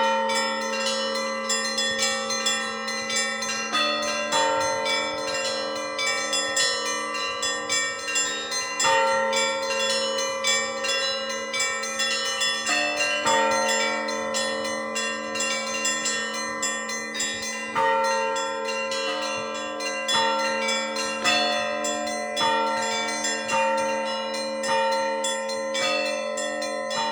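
Russian church bells rung in a continuous peal: rapid strikes on the small, high bells over the sustained ringing of larger, deeper bells.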